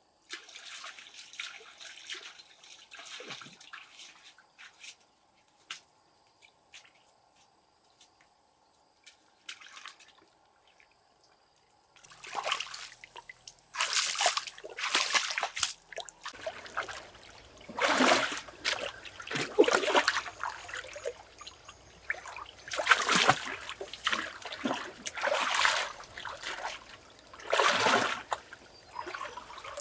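Water dripping and trickling faintly, then, about twelve seconds in, louder splashing and pouring in repeated surges a second or two long.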